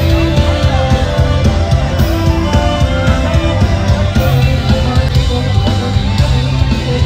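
Loud music with guitar and drums and a steady beat.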